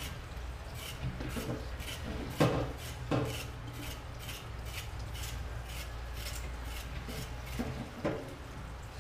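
A carrot being scraped with a knife over a kitchen sink: short rasping strokes about two a second, with two louder knocks about two and a half and three seconds in.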